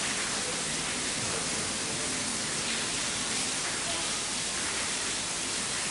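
Steady rushing hiss, with a man's voice faintly murmuring under it now and then.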